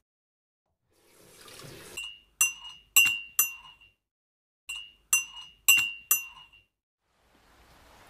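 Wooden toy spoon tapping the wooden pieces of a toy tea set: two runs of four sharp clinks, each with a brief ring, after a soft scrape.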